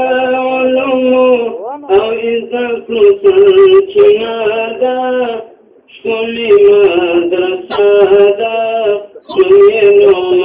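A male voice singing a Pashto naat unaccompanied, in long held, ornamented phrases with two short pauses.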